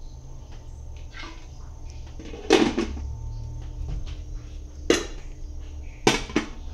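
A metal tray clanking as it is set over a basin of salted fish, then a heavy stone knocking down onto the tray to weigh the fish down. There are three sharp clanks: one about two and a half seconds in, one near five seconds, and a double knock near the end as the stone goes down.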